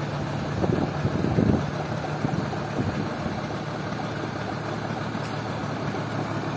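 Diesel engine of a large intercity bus idling steadily while it warms up and builds air pressure before pulling away, briefly a little louder about a second in.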